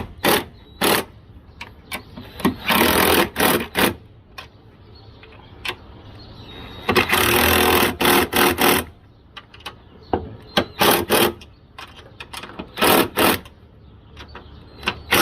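Power wrench (cordless impact wrench) running in repeated bursts as suspension bolts are run in and tightened: several short bursts and two longer runs of a second or two, one near the start and one about halfway.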